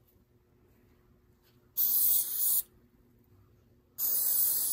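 Aerosol carburetor cleaner sprayed onto a carburetor body in two short hissing bursts, the first about two seconds in and the second near the end.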